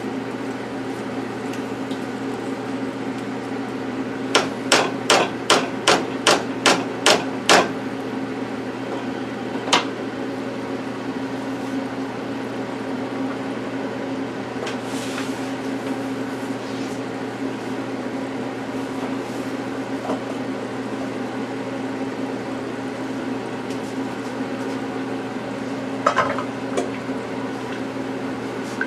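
A steady low hum with a quick, even run of about nine sharp knocks a few seconds in, then one more knock shortly after. A few smaller knocks come near the end.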